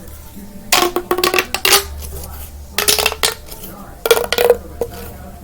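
Plastic pop tubes being stretched and squashed, giving three loud bursts of rapid clattering clicks, the first about a second long and the next two shorter. It is the noise she judges too loud for school.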